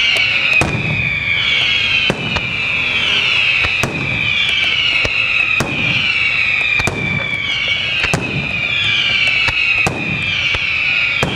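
Aerial fireworks display of St. Mary Fireworks (Malta) shells. A continuous run of shrill whistles, each falling in pitch over about a second and overlapping the next, is punctuated by sharp bangs of bursting shells every second or so.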